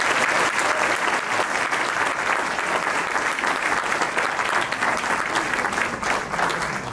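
Audience applauding at the close of a piece: steady, dense clapping from many hands.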